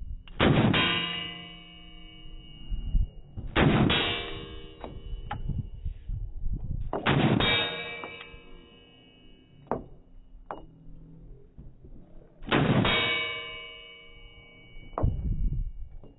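Four Glock pistol shots a few seconds apart, each with a steel target clanging and ringing on for a second or two. Lighter metallic clinks fall between the shots.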